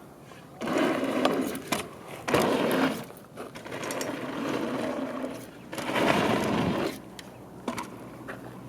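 Mountain bike being ridden: four bursts of tyre rolling noise with clicks and rattles, each lasting a second or two.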